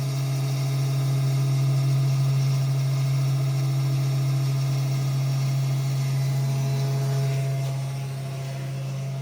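Small desktop CNC router engraving with a V-groove bit: its 12-volt spindle motor running with a steady hum, with fainter higher tones from the machine that shift about seven seconds in. The level drops a little near the end.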